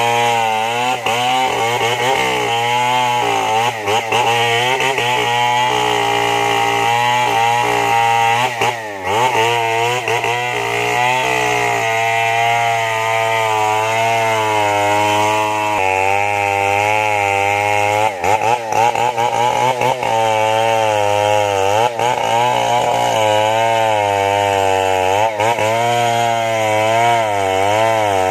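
Two-stroke chainsaw running at full throttle while cutting into the trunk of a large merbau hardwood tree. Its engine pitch wavers up and down continuously as the chain loads in the wood, dipping sharply a few times.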